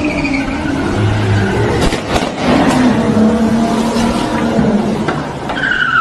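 Car engine revving hard, with a few sharp knocks about two seconds in.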